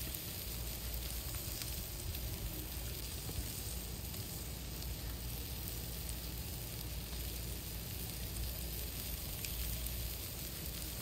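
Steady sizzling hiss with a few faint crackles over a low rumble, burgers cooking over an open campfire.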